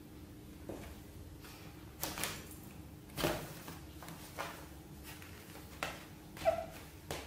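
A kitten scrabbling about inside a nylon pop-up play tunnel: fabric rustling and paw scratching in about eight short bursts, the sharpest near the end.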